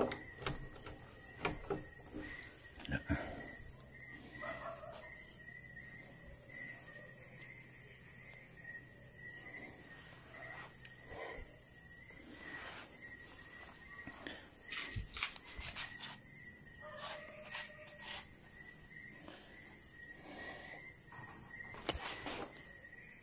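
Night insects chirping in a steady, high, pulsing trill, with a few light knocks scattered through.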